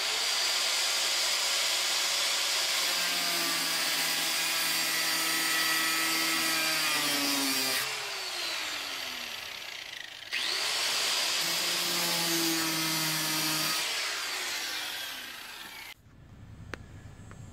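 Handheld cutoff tool cutting through the rusted sheet metal of a pickup's rocker panel: a steady whine with a grinding hiss. It winds down about eight seconds in, spins back up about two seconds later, and trails off near the end.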